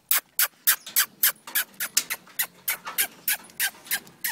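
A dog panting fast and hard, a steady rhythm of about three to four breaths a second.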